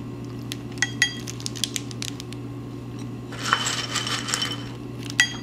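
Japanese peanuts clinking as they drop into a ceramic dish and are scooped by hand from a glass bowl: scattered light clicks with a brief ringing, and about three seconds in a short rustling clatter of nuts being grabbed.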